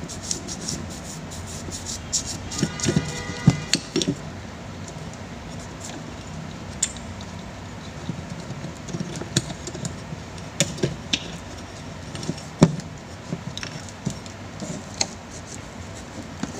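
Scattered clicks and light metallic knocks from an electric fan motor's housing and parts being handled and worked with a hand tool, over steady background noise. The loudest knocks come about three and a half seconds in and again about twelve and a half seconds in.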